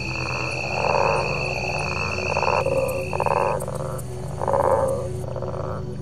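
Frogs croaking at night: short rasping croaks repeating about once a second, over the steady high trilling of insects.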